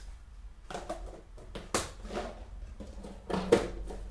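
Small objects being handled on a table: a few light knocks and clicks, one sharp click just under two seconds in and the loudest knock near the end.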